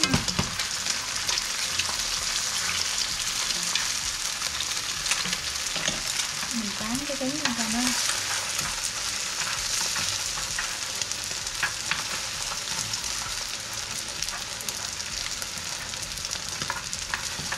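Eggs frying in hot oil in a pan, a steady sizzle, with scattered clicks and scrapes of stirring in the pan.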